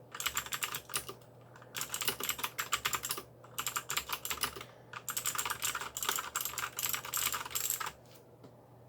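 Aula mechanical keyboard with clicky blue switches being typed on fast, in runs of rapid clicks broken by short pauses. The typing stops about eight seconds in.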